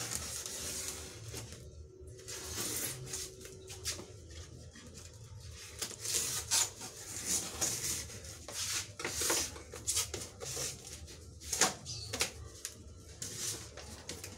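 A cardboard box being opened by hand: packing tape cut with a knife and torn away, and the flaps pulled open. The sound is an irregular run of short scratchy rips and rubs, busiest in the second half.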